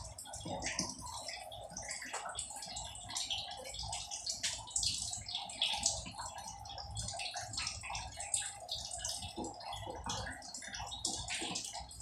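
Scattered small clicks, crackles and rustles of electrical wire being handled, bent and twisted close to the microphone while it is readied for connection to a water-pump pressure switch.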